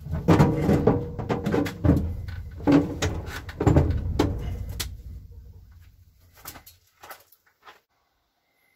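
Clunks, knocks and scraping of a heavy battery being lowered and set into a painted sheet-metal battery compartment, over a low rumble. After about five seconds the knocking thins to a few light clicks, and it stops near the end.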